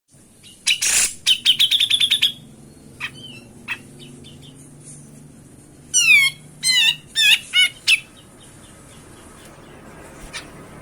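Cucak jenggot (brown-cheeked bulbul) calling loudly: a quick run of rapid repeated notes about a second in, a couple of short single notes, then four loud downward-sweeping whistled calls a few seconds later. A lure call used to set off cucak jenggot that are slow to sing.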